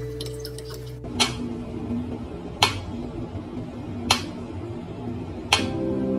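Mechanical pendulum metronome ticking slowly, four sharp ticks about a second and a half apart.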